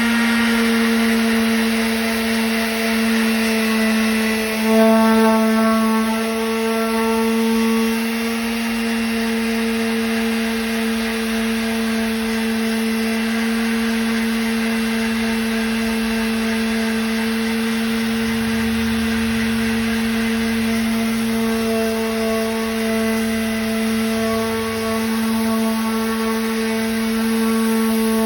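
Electric power sander running steadily against a car body panel, a constant high-pitched motor hum.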